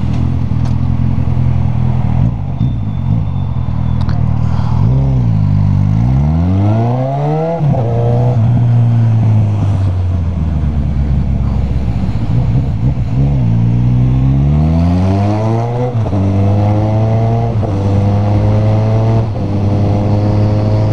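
Motorcycle engine running through an open exhaust pipe with its tip removed, with a deep sound. The rider accelerates hard: the revs climb steeply about five seconds in and again about thirteen seconds in, then rise in short steps through several quick upshifts near the end.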